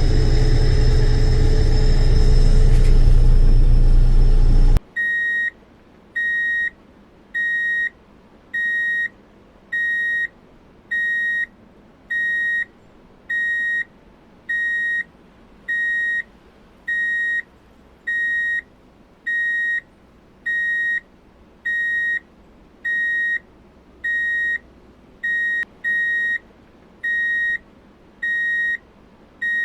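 A heavy vehicle engine runs loudly and cuts off abruptly about five seconds in. A vehicle's electronic warning beeper follows, a single high tone lasting about half a second and repeating a little slower than once a second.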